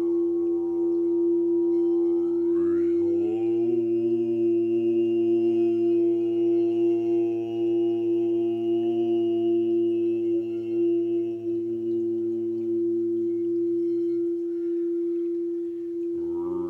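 Sound-healing drone of sustained chanted tones over a steady held tone. About three seconds in, a voice slides upward and then holds a low note with a thin whistling overtone high above it; the low note drops away near the end while the steady tone carries on.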